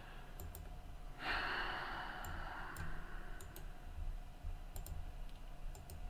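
Scattered faint clicks of a computer mouse working through software menus, with one long exhaled sigh starting about a second in.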